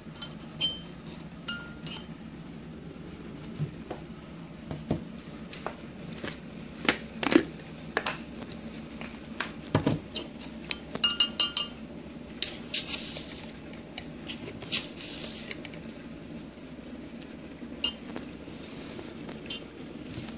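Metal teaspoon clinking and scraping against a ceramic mug of dry powder, in scattered taps with a fast run of clinks around the middle.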